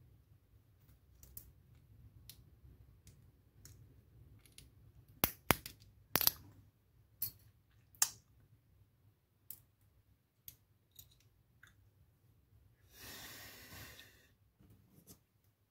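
Scattered sharp clicks and taps of small lock parts and tools being handled, loudest in a quick cluster about five to six seconds in, with a brief rustling scrape near the end.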